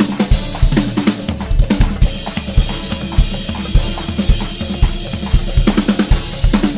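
DW drum kit with Sabian cymbals played in a busy fusion groove: rapid bass-drum strokes, snare hits and rimshots, and cymbal wash. It is played over a backing track with sustained bass and keyboard notes.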